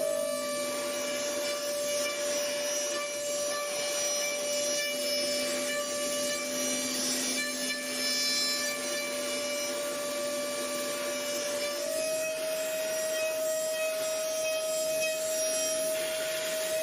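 CNC machine cutting a workpiece: a steady spindle whine over a rasping cutting noise, the pitch stepping slightly about twelve seconds in.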